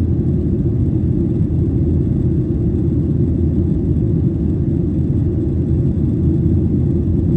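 Steady low rumble of a jet airliner's cabin during the climb after takeoff: engine and airflow noise heard from a window seat over the wing.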